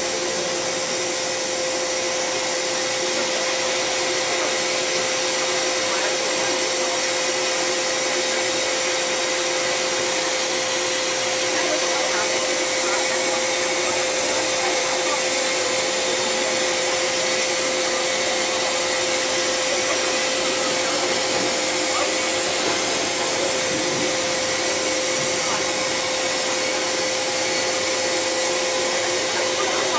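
Loud, steady hiss of air leaking inside an MTR M-Train carriage, with a steady tone under it: the sign of faulty pneumatic parts around an out-of-service door, more than one part apparently broken.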